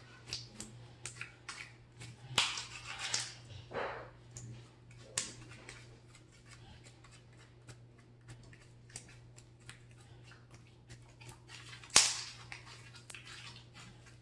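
Sticky glue-and-borax slime being squished and pulled between the fingers, giving irregular small clicks and pops, with louder bursts of them about two to three seconds in and a single sharper snap near the end. A faint steady low hum runs underneath.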